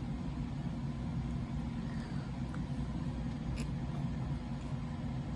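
Steady low background hum, with a faint tick about three and a half seconds in.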